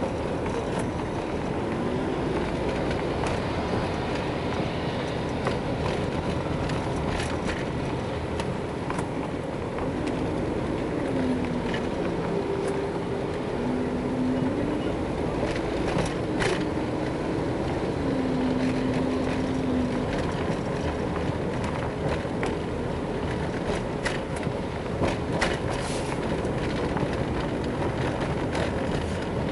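A car driving through city traffic, heard from inside the cabin: steady engine and road rumble throughout. A few short, faint held tones come in the middle, and there are scattered light clicks.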